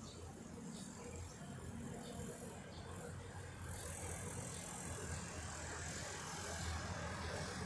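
Distant road traffic: a steady low rumble and hiss of cars and motorcycles passing, growing a little louder about halfway through.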